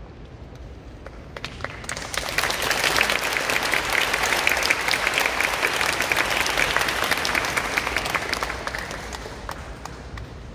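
Audience applauding: scattered claps begin about a second in, swell into full applause, then die away near the end.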